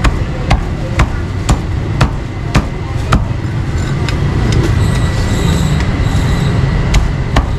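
Meat being chopped with a cleaver, sharp even strokes about two a second, breaking off for a few seconds and starting again near the end, over a steady low traffic rumble.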